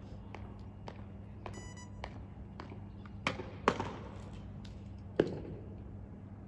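Scattered sharp taps and knocks over a low steady hum, with three louder knocks about three to five seconds in. There is a short beep about one and a half seconds in.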